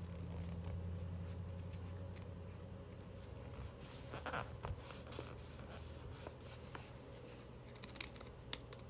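Close-up paper handling from collage journaling: soft rubbing and scratching on paper, with a short rustle about four seconds in and a few light ticks near the end. A low steady hum runs underneath, loudest in the first three seconds.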